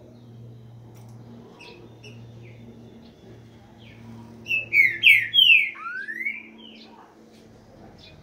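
Green-winged saltator (trinca-ferro) singing one loud phrase of slurred whistled notes about halfway through, ending with a long rising note and a few shorter ones: its 'boiadeiro' song. A few faint short chirps come before it.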